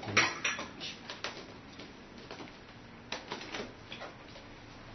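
Scattered light clicks and taps, the sharpest just after the start and a small cluster about three seconds in.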